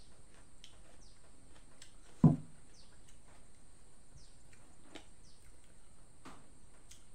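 Rural background of short, repeated falling bird chirps over a steady high drone, with one dull thump about two seconds in.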